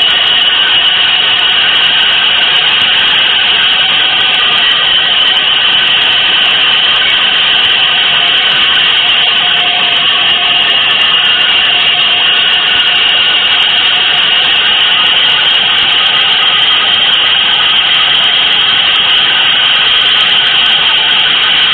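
Experimental noise music: a loud, steady, dense hiss-like texture with a few faint held tones inside it, unchanging throughout.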